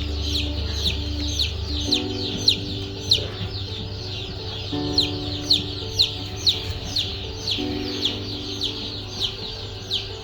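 Young chickens peeping, a quick string of short falling chirps several times a second with some louder than others, over background music of slow sustained chords.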